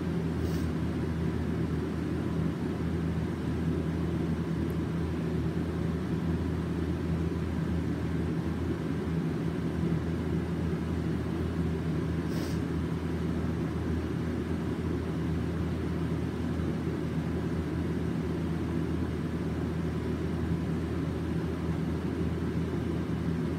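Steady low hum and rumble of room background noise, with no speech.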